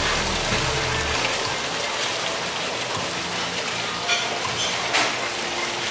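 Steady rushing hiss of restaurant ambience with a few faint clicks; a low musical tone fades out about a second in.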